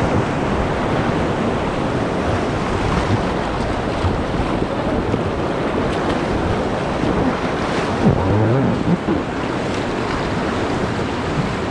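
Loud, steady rush of river rapids splashing close to the microphone as a raft runs down a rocky stretch of river.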